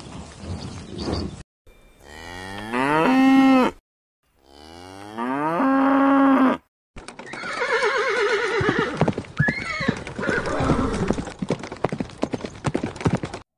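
Two long cow moos, each rising and then held on one low steady note. They follow a second of low bison grunting. From about seven seconds in, a horse whinnies over a run of sharp clicks.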